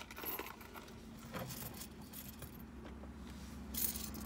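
Loose coins clinking and jingling as they are handled and counted by hand, in scattered small clinks with a louder cluster near the end.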